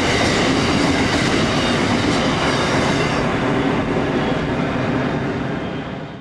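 Freight train rolling past with steady wheel and rail noise. The higher part of the sound fades from about three seconds in, and the whole sound tails off near the end.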